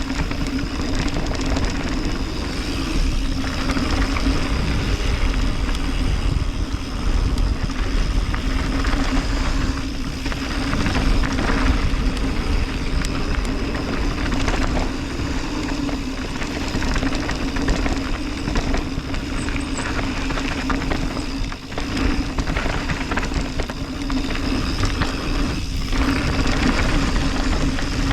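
Mountain bike riding down a dirt downhill trail: steady wind noise on the microphone and tyre rumble, with many short knocks and rattles as the bike goes over bumps.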